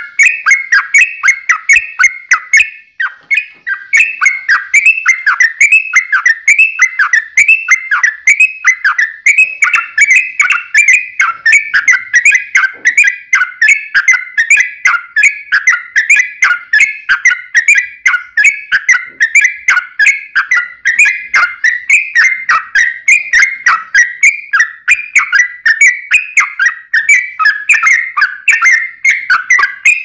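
Yellow-vented bulbul (trucukan) singing a long, unbroken run of rapid chattering, whistled phrases, several notes a second without a pause; the recording is loud, with crackly clicks over the song.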